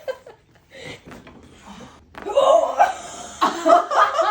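Laughter and excited voices without clear words, loudest in the second half.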